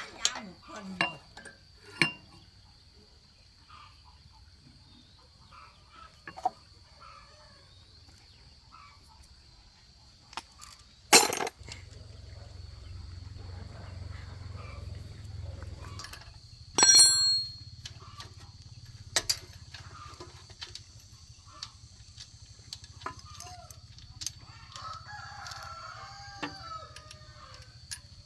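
A rooster crowing and chickens clucking, over scattered sharp clicks and knocks. A low steady hum sets in after a loud knock about eleven seconds in.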